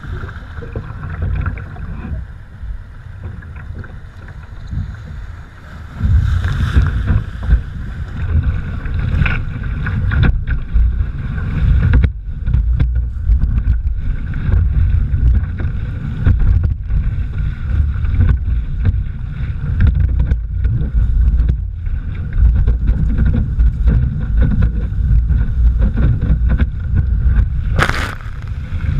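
Wind buffeting the deck-mounted camera's microphone and water rushing and splashing along an NDK Romany sea kayak as it paddles and surfs waves, getting much louder about six seconds in. Near the end a wave breaks over the bow in a sudden splash.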